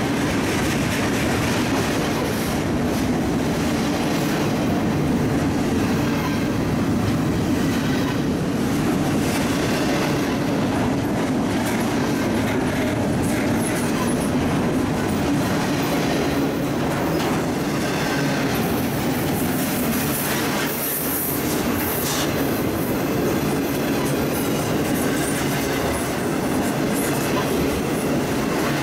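CSX intermodal freight train's double-stack container cars passing close at speed: a steady, unbroken rumble and clatter of steel wheels on the rails.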